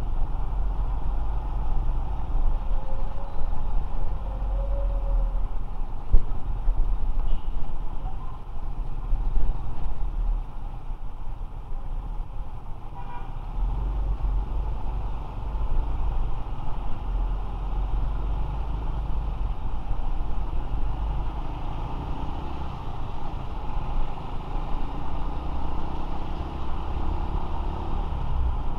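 A motorcycle riding in road traffic, heard from an action camera on the bike or rider: a steady low wind rumble on the microphone, with engine and traffic noise. A short horn toot sounds a few seconds in, and an engine note rises slowly near the end.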